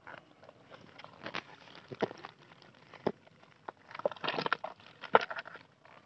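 Dry, fibrous log being pried and torn apart by hand: irregular cracking, snapping and crunching of splitting bark and fibres, with a busier run of crackling about four seconds in.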